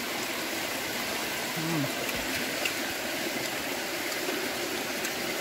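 Steady hiss of heavy rain falling. About a second and a half in, a person gives one short low vocal sound.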